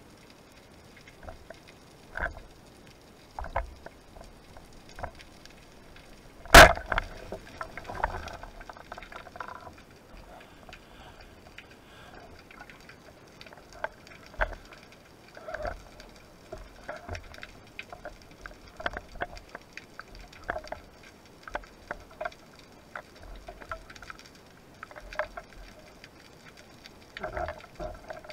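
Wooden speargun fired underwater: one loud, sharp crack about six seconds in. Scattered small clicks and knocks follow as the shooting line is handled, with bubbling near the end.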